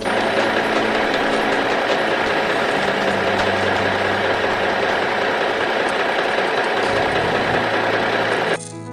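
Vehicle engine running steadily at idle, an even mechanical rumble that cuts off near the end.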